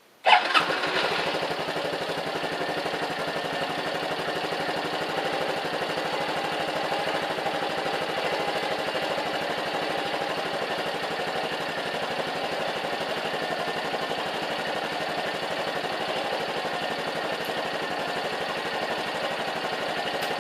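Honda Cross Cub's single-cylinder four-stroke engine starting about a third of a second in and then idling steadily.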